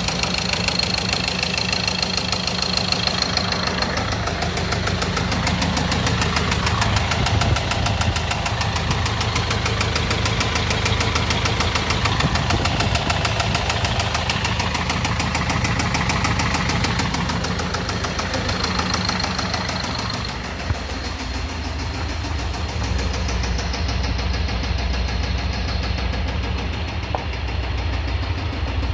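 Ford Transit diesel engine running with a rapid, steady knock: a connecting rod knocking.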